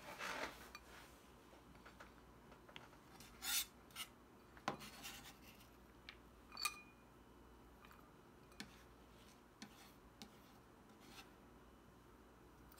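Chef's knife blade scraping minced garlic across a plastic cutting board in a few short strokes, with soft taps and a brief clink about halfway through as the garlic goes into a small ceramic bowl; light ticks follow.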